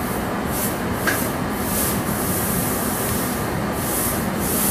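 Steady roar of a glass studio's gas-fired furnace and glory hole burners, with a hiss in the highs that swells and fades several times and one short click about a second in.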